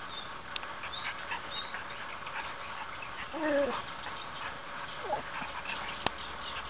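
Miniature schnauzer puppy giving a short yelp that falls in pitch about halfway through, then a fainter brief one about a second and a half later, amid small clicks of play and one sharp click near the end.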